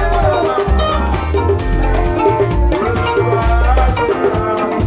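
Live band playing upbeat gospel music, with a drum kit keeping a steady beat under a strong electric bass line and melodic lines above.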